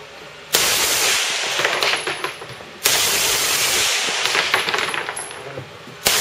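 Fully automatic gunfire in three bursts, at about half a second, about three seconds and just after six seconds, each trailing off in a long echo.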